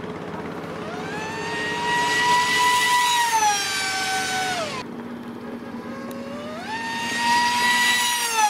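Electric motor and propeller of a Flybot Flux FPV racing flying wing, whining in two high-speed runs. Each time the pitch climbs, holds high, then drops away.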